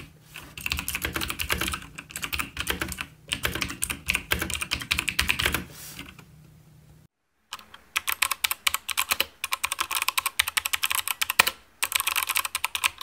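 Typing sound test on two clicky mechanical keyboards, a Motospeed CK61 with Kailh Box White switches and a Razer BlackWidow Tournament Edition, one after the other. A run of rapid keystroke clicks with a low hum under it is followed, after a brief silent break about seven seconds in, by a second run of rapid clicking without the hum.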